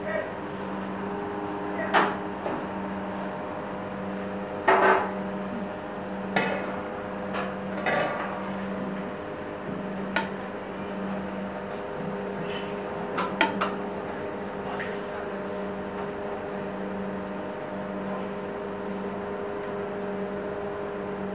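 Cooked rice scooped with a plastic bowl and tipped into a large cooking pot, the bowl knocking and clattering against the pot now and then, about half a dozen times. Under it runs a steady machine hum.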